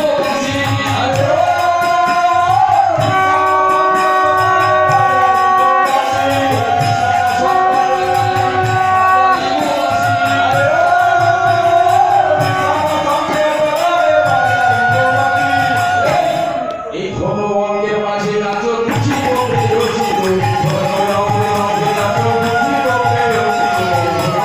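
Bengali devotional kirtan: a man singing into a microphone over a khol clay drum beating a steady rhythm, with jingling percussion on top. The music thins briefly about two-thirds of the way through.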